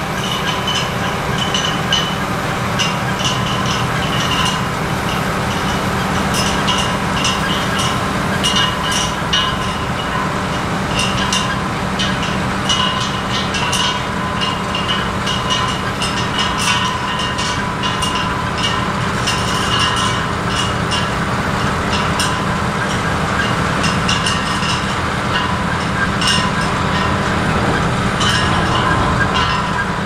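Potato-handling machinery running steadily, with a continual irregular clatter of potatoes and stones knocking on its conveyors.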